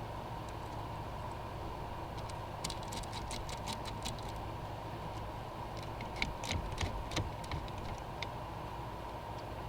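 Two runs of light clicks and taps as tools and hose parts are handled during a heater hose repair: a quick run of about ten clicks, then a few louder scattered ones, over a steady background hum.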